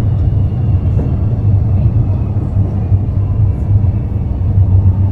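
Steady low rumble of a suburban electric train heard from inside the carriage, with a faint thin high whine running over it.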